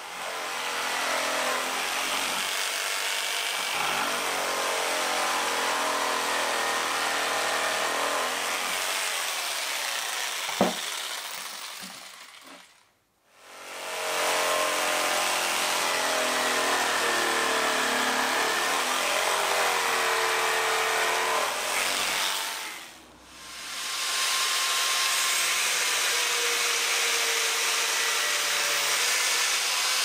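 Electric jigsaw cutting through a thick wooden board, its motor running steadily under load with a wavering pitch. The sound drops out briefly twice, about a third and two thirds of the way through, and there is one sharp click partway through.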